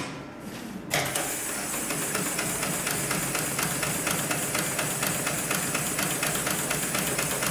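Hightex GLK700-6040 automatic programmable pattern sewing machine stitching a pattern on a clamped panel, the needle running in a rapid, even clicking rhythm over a steady hiss. The stitching starts about a second in.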